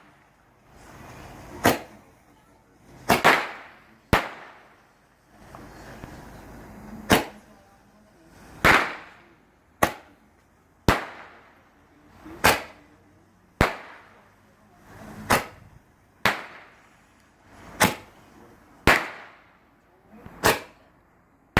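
Legal Max Mega Bangs 10-shot roman candle firing: a string of sharp bangs, roughly one every second, some trailing off in an echo.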